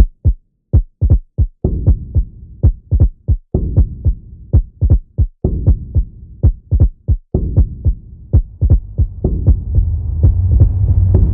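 Deep heartbeat thumps, each a low booming hit that drops in pitch. They come in pairs at first, then closer together and faster, with a low hum swelling underneath near the end.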